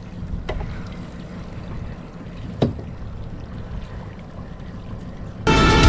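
Boat's outboard motor idling with a low steady hum on calm water, with a light click about half a second in and a sharper knock about two and a half seconds in. Loud music cuts in near the end.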